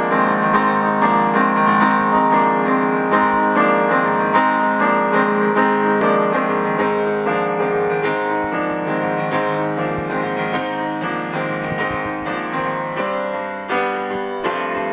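Electronic keyboard playing a piano-voiced instrumental intro, chords struck on a steady beat.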